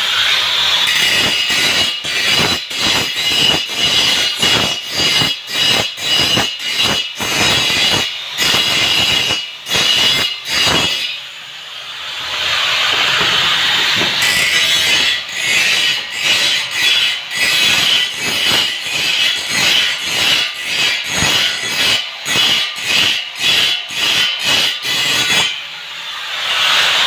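Angle grinder running and grinding metal, a steady high whine broken up by rapid irregular pulses, with a smoother stretch about halfway through.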